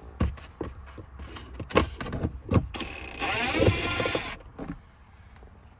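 Several sharp clicks and knocks of tools on plastic trim, then a cordless screw gun's motor whines for about a second, backing out a 7 mm trim screw.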